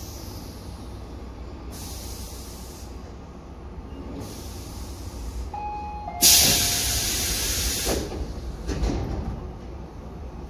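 Electric commuter train's compressed-air system venting: a sudden loud hiss of air lasting about two seconds, then a shorter one, after two softer hisses and two short beeps, over the steady low rumble of the train running.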